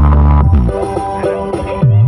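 Electronic DJ remix played loud through a large stacked sound-system rig. Deep bass for the first half second, then the bass drops away under a synth melody and comes back just before the end.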